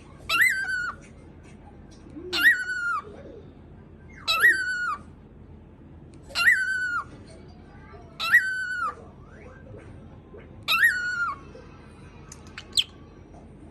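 Cockatiel mimicking a dog's bark: six short bark-like calls, one about every two seconds, each jumping up in pitch and then holding. A brief high chirp follows near the end.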